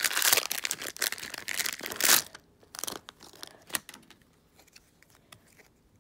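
Foil Pokémon booster-pack wrapper crinkling and tearing open for about two seconds, then faint taps and rustles as the cards are slid out and handled.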